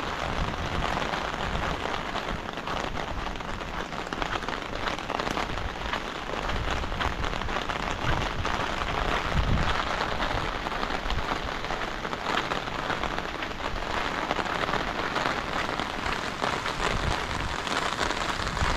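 Heavy rain falling steadily, a dense wash of countless close drop hits.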